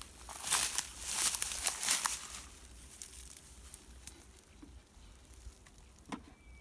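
Rustling, crinkling noise for about two seconds, then quieter, with a single soft knock near the end.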